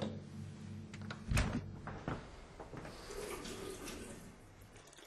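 A fridge door and a plastic milk bottle being handled: a few clicks, then a solid thump about one and a half seconds in, then faint rustling, over a low steady hum.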